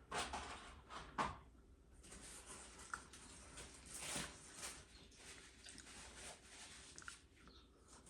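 Dead air during a broadcast Emergency Alert System weekly test: only faint hiss and a low hum with a few small clicks and rustles, the sharpest about a second in. The test message's audio has dropped out.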